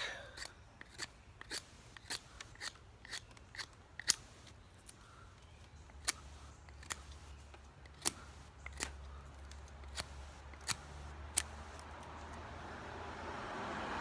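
Zero Tolerance 0460 folding knife's S35VN steel blade shaving curls off a thin stick to make a feather stick. It gives a string of short, sharp scraping clicks at an uneven pace, a few a second.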